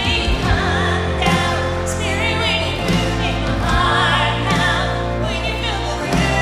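Live worship song: a female lead singer and a female harmony singer sing over electric guitar and a sustained bass.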